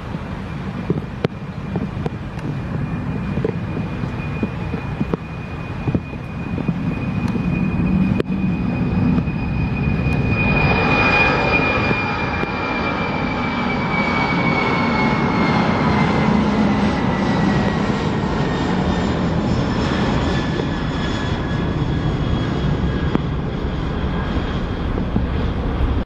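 Four-engine Boeing 747 freighter at takeoff thrust, accelerating down the runway and climbing out: a steady jet engine rumble that grows louder over the first ten seconds, with a high whine that holds and then slowly falls in pitch as the aircraft passes.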